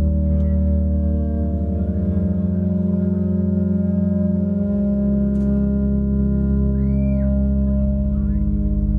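Slow ambient drone music: sustained low chords that wobble and pulse. The bass notes change about halfway through.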